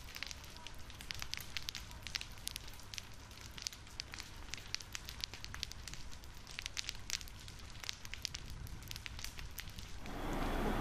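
Forest fire burning through undergrowth, crackling with many irregular sharp pops over a low rumble. Near the end it gives way to a louder steady hiss.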